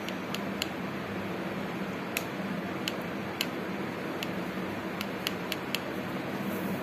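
A paintbrush stirring paint in a plastic palette well, its handle and ferrule giving about ten small, sharp clicks at uneven intervals against the plastic, over a steady background hiss and low hum.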